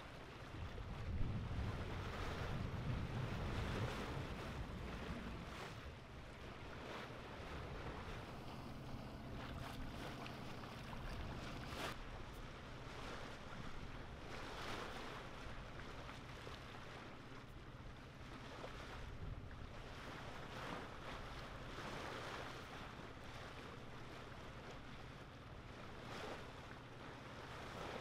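Wind buffeting the microphone and water washing past a small sailboat's hull at sea, stronger in the first few seconds. A faint steady low hum runs underneath, and there is a single sharp tick about twelve seconds in.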